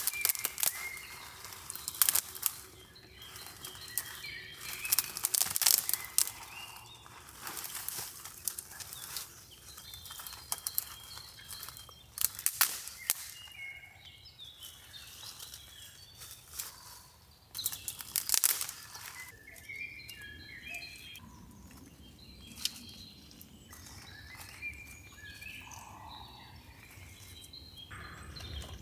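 Short bird chirps in the background, mixed with irregular bursts of rustling and crinkling from close handling.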